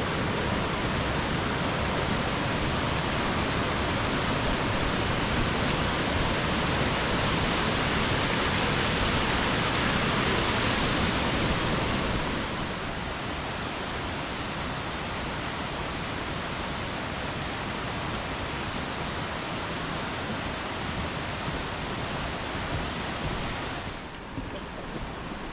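Rushing water of a gorge waterfall, a steady roar with no break. It drops in level about halfway through and again near the end.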